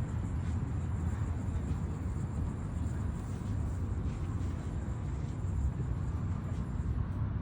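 Steady outdoor rumble, strongest in the low end, with an even hiss above it and no distinct events.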